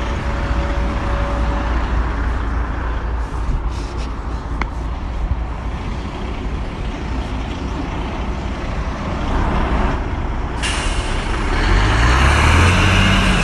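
Heavy truck engine running, with road noise. About ten and a half seconds in a hiss sets in sharply, and near the end the engine note rises and falls.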